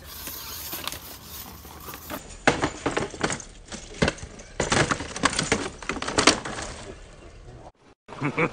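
RC scale crawler truck tumbling down a rock slab, its body knocking and clattering against the stone in a quick irregular series of hits.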